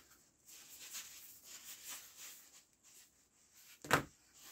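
Soft rubbing and scraping of hands working the black rubber edge trim around a round perforated metal speaker grille on a workbench, with one sharper knock near the end.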